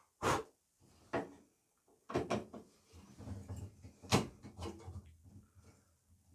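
Handling noise: a series of sharp clicks and knocks, five or so over a few seconds with the loudest a little past the middle, and softer scraping between them.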